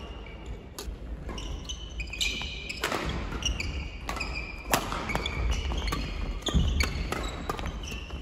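Men's doubles badminton rally: rackets strike the shuttlecock with sharp cracks every second or two, mixed with sneakers squeaking on the wooden court floor.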